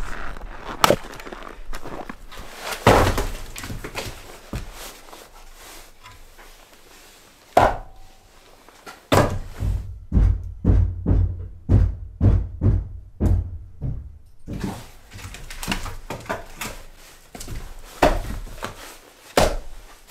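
Firewood being handled: a string of wooden thunks and knocks, with a run of about ten quick blows, roughly two a second, in the middle and single sharper knocks before and after.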